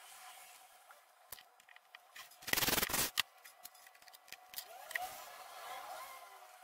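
Plywood pieces handled on a wooden workbench: small knocks and taps, and a loud half-second scrape of wood sliding against wood about two and a half seconds in, followed by a sharp click.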